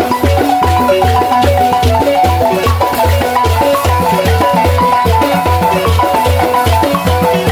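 Senufo balafon music: fast runs of wooden mallet-struck notes over a steady low beat.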